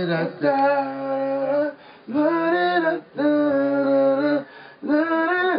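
A man singing without accompaniment: four short phrases of long held notes, each about a second long, separated by brief pauses.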